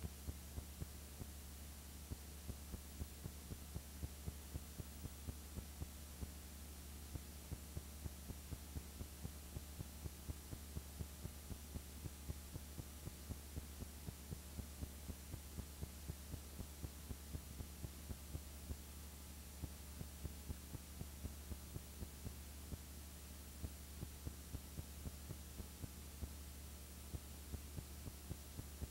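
Low steady electrical hum with faint regular clicks, about three a second: the background noise of a silent home-movie transfer that has no soundtrack.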